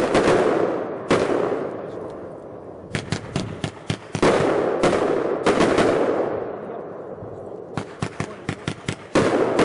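Vanguard 'Flame Filled' consumer firework firing in waves. Each wave is a quick run of sharp pops followed by a loud hissing, crackling surge that fades over a second or two. Fresh waves start about a second in, around four to five seconds in, and again near the end.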